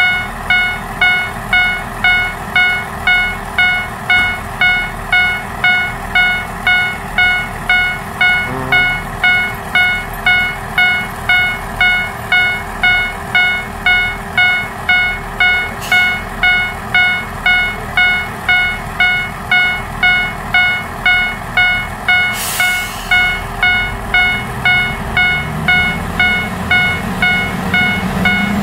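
Railway level-crossing warning bell ringing steadily, about one and a half strikes a second. A short hiss comes about two-thirds of the way in. Near the end a diesel railcar's engine rises in pitch as it begins to pull away.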